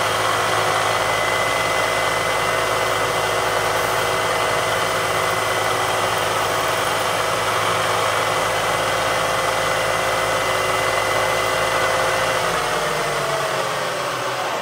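Milling machine spindle driving a drill into aluminium plate: a steady motor whine over a hiss. About two seconds before the end the whine falls in pitch as the spindle slows, and the sound stops.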